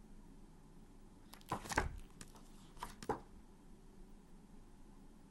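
Paper flash cards being handled and swapped, a few short rustles and slaps about a second and a half in and again about three seconds in.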